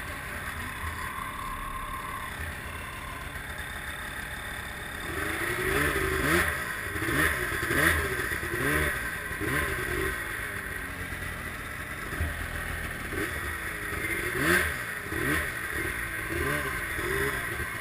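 Snowmobile engine idling, then about five seconds in the throttle is blipped again and again, short revs rising and falling roughly once a second, in two runs with a short pause between.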